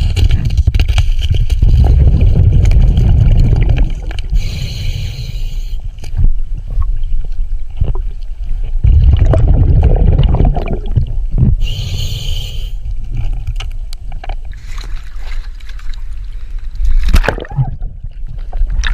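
Scuba diver breathing underwater through a regulator: long rumbling gurgles of exhaled bubbles, broken twice by a short hissing inhale through the regulator.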